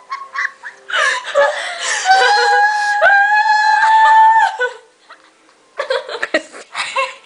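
Girls laughing hard, with a long held high-pitched cry for a couple of seconds in the middle, then short bursts of laughter near the end.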